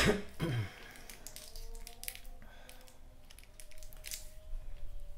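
Handling noise from a telescopic fishing rod being turned over in the hands amid its plastic packaging: a loud sharp sound at the very start, then faint scattered clicks and rustles.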